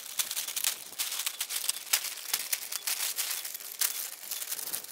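Plastic sheeting crinkling and rustling as it is pulled off and handled, an irregular run of sharp crackles.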